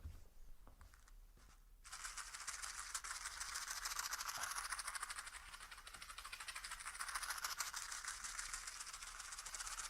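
A few faint clicks, then about two seconds in a fast, dense, shaker-like rattle starts and continues steadily.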